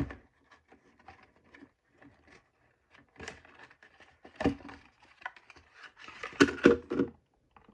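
Cardboard box and its packaging being handled: scattered light rustles, scrapes and taps, with a louder knock about four and a half seconds in and a short cluster of knocks near the end.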